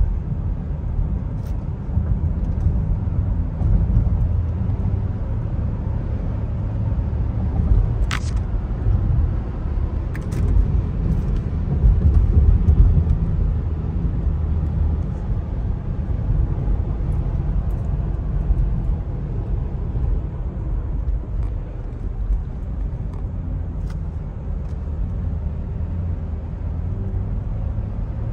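Steady low road and engine rumble inside a moving car's cabin, with a sharp click about eight seconds in.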